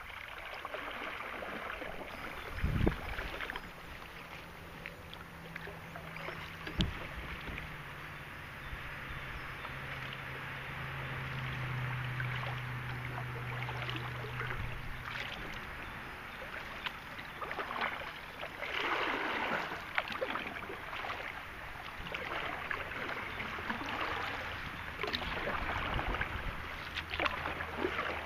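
Kayak paddling: paddle blades dipping and splashing in river water in repeated surges, with two sharp knocks about three and seven seconds in. A low steady hum runs through the middle of it.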